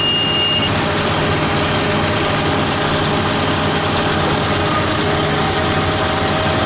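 New Holland 8160 tractor's six-cylinder non-turbo diesel engine running steadily under load, heard from inside the cab. A steady high electronic beep stops about half a second in.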